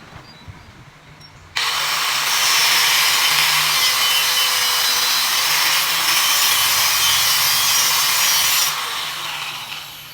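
A power tool starts abruptly, runs steadily for about seven seconds with a loud hissing cutting noise, then winds down near the end.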